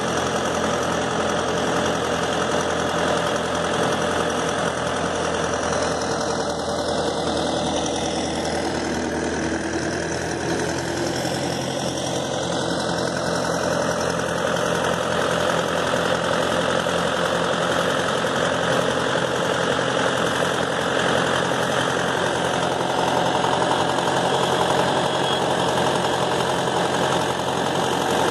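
Mahindra tractor's diesel engine running steadily while the tractor works in deep mud on a tow rope.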